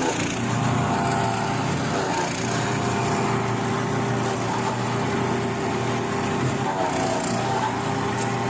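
Wood chipper's engine running steadily at a constant speed.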